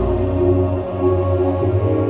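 Background music: slow ambient music with held tones over a shifting bass.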